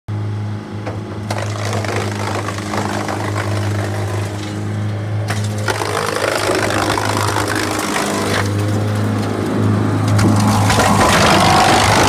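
GreenMech ARB19 wood chipper running with a steady engine hum while it chips timber fed into its hopper. The cracking and splintering of the wood builds from about halfway through and is loudest near the end.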